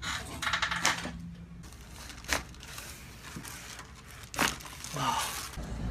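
Three sharp cracks, spaced a second or two apart, during a chiropractic adjustment, over the rustle of the treatment table's paper and clothing.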